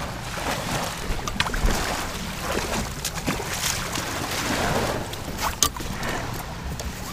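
Handling noise on an Itiwit inflatable kayak beached in sandy shallows: scattered knocks and clicks as the paddle is lifted and the bow rope is grabbed, over a steady wash of water and wind.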